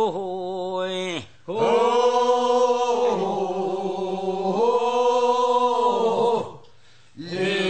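Korean funeral bier-bearers' song (sangyeo-sori) chanted slowly: one short phrase, then a long drawn-out held line, with brief breaks for breath between phrases.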